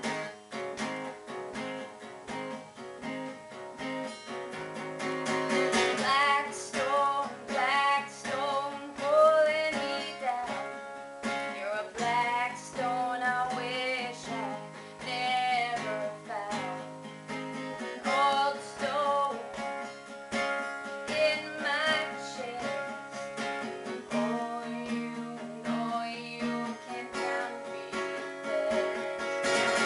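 A woman singing to her own acoustic guitar. The guitar plays alone at first, and the voice comes in about six seconds in.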